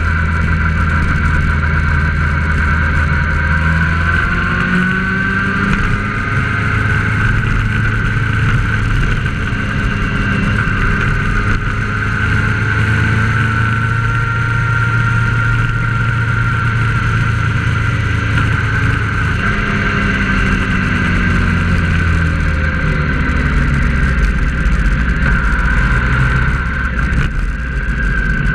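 Engine and road noise of a moving road vehicle heard from on board. The engine pitch climbs a few seconds in as it speeds up and slides down again about two-thirds of the way through, with a steady high whine over it throughout.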